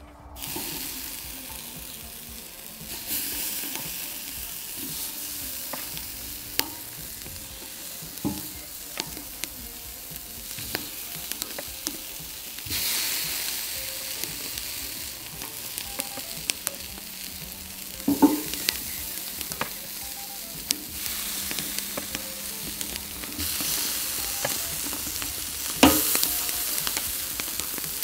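Oil-marinated chicken wings and drumsticks sizzling on a hot charcoal grill grate as pieces are laid down, the sizzle swelling each time more meat goes on. Sharp clicks and pops come now and then, the loudest about 18 and 26 seconds in.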